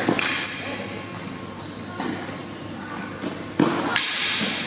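Tennis balls being struck with rackets and bouncing on a hard indoor court, several sharp hits echoing through a large hall, with short high squeaks of shoes on the court between them.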